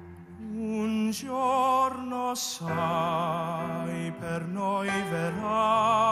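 A man singing an Italian operatic ballad with a strong vibrato over a soft sustained instrumental backing track, with short breaks for breath between phrases.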